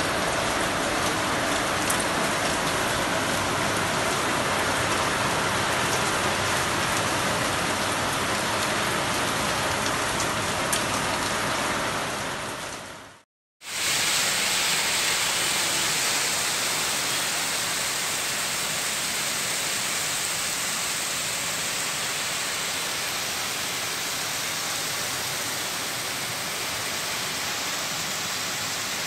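Heavy rain pouring down steadily onto paved ground and standing water, an even hiss. About halfway through it cuts out for a moment, then comes back as the same steady downpour with a sharper hiss.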